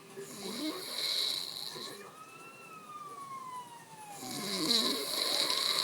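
A sleeping person snoring, two long snores about four seconds apart. A siren wails at the same time, its pitch slowly rising and falling twice.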